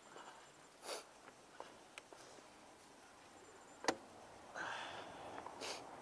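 Quiet handling and movement noise close to the microphone, with a few short breathy sniffs from someone with a cold and a single sharp click about four seconds in.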